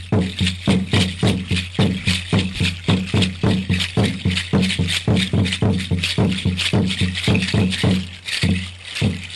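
Mexica dance music: a deep drum beating steadily at about three strokes a second, with a hand rattle shaking in time over it. The beat briefly thins about eight seconds in.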